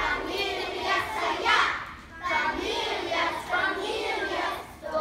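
A group of first-grade children singing together in unison, phrase by phrase, with a short pause about two seconds in.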